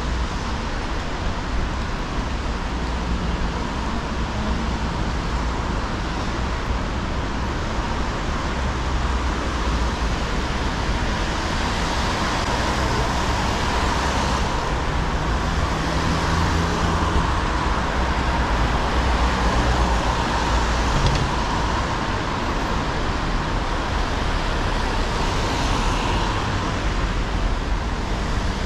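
Steady city street noise: road traffic passing on wet streets, an even hiss with a low rumble that swells a little about halfway through.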